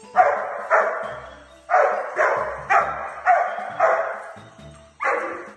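A dog barking repeatedly: two barks, a short pause, then five barks about half a second apart and one more near the end.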